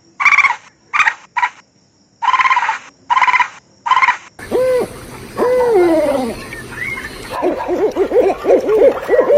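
Animal calls: about seven short, sharp pitched calls with gaps between them over the first four seconds, then a cut to another animal clip where many calls overlap, each rising and falling in pitch.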